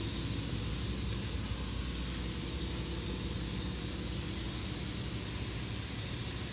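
Steady low mechanical hum of shop background noise, with a few faint ticks in the first half.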